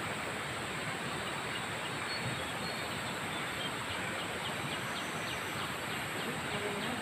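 Steady rushing noise of flowing river water. From about halfway through, faint quick high chirps repeat a few times a second.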